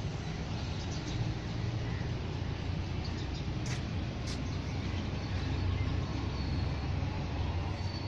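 Steady low rumble of outdoor background noise, with two brief sharp sounds about half a second apart halfway through.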